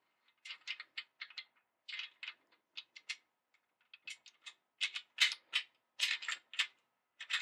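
Bolt of a Springfield M1A SOCOM II rifle being slid and wiggled out of its receiver by hand during field stripping: an irregular string of short metal clicks and scrapes, coming thicker and louder in the second half.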